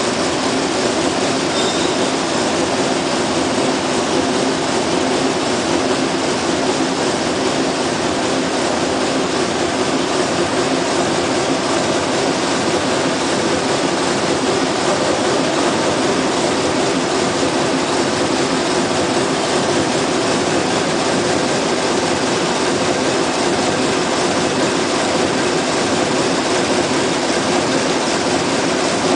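Zipper-tape needle loom running at speed: a steady, fast mechanical clatter that never changes in level.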